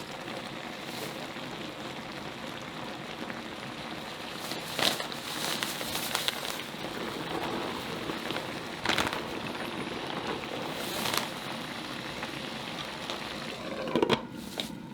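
Dak-galbi sizzling and bubbling in a hot pan, a steady crackling, with a few short clinks from a utensil.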